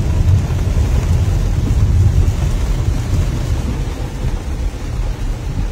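Low, steady rumble inside a car cabin as the car drives through floodwater on a flooded road.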